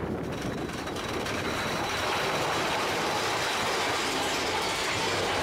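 Mine-train roller coaster cars rolling along the track: a steady rumble and clatter of wheels on rail, with a faint, steady high whine running through it, growing a little louder about two seconds in.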